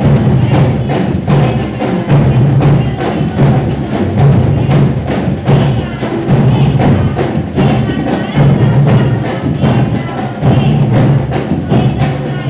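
Batuku music: fast, dense hand-slapped percussion in a steady driving rhythm, with singing voices underneath.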